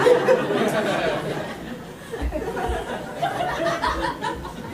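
Audience laughing, loudest for the first two seconds and then tapering off into scattered chuckles.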